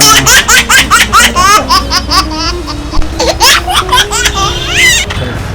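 High-pitched laughter: a rapid run of short ha-ha bursts that stops about five seconds in, over background music.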